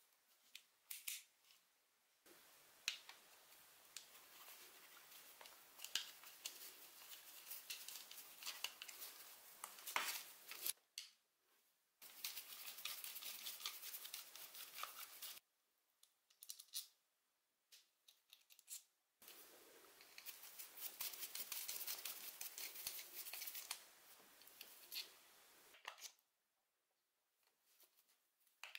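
A screwdriver turning screws out of an old electric drill's metal housing: the bit and threads scrape and grind in three long, gritty stretches, with scattered clicks of metal parts being handled between them.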